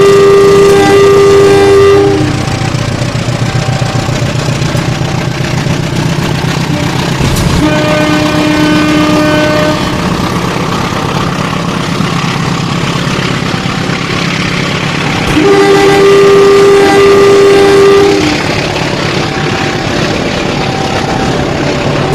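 Battery-powered toy train running round its plastic track with a steady motor hum and rattle, sounding its electronic horn three times, each toot held about two seconds.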